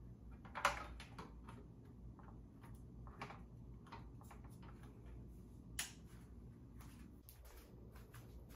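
A few sharp clicks and light taps, the loudest about half a second in and just before six seconds, with smaller ones between, over a faint steady low hum.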